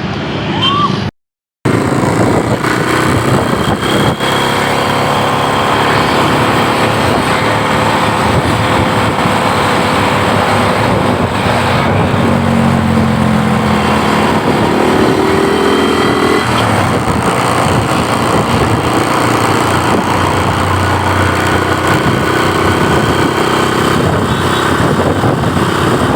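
Steady motor-vehicle and road noise, with engines running amid traffic. A brief cut to silence comes just over a second in, and an engine note shifts in pitch around the middle.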